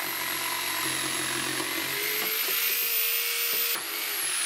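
Makita electric jigsaw cutting a curve through a thick wooden board, its motor whining steadily at a high pitch. Near the end the saw is switched off and the whine falls away as the motor spins down.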